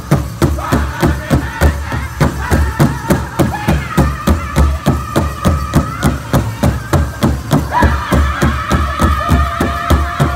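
Powwow drum group singing a men's fancy dance song: several men's high-pitched voices over a big powwow drum struck together at a fast, steady beat of about three to four strikes a second. The singers hold long high notes in places.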